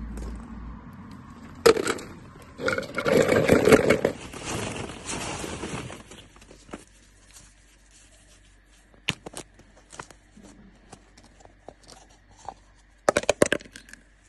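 Hands handling plastic toys: a few seconds of rustling and scraping, then scattered small clicks, then a quick cluster of sharp clicks near the end as a plastic surprise egg is pulled open.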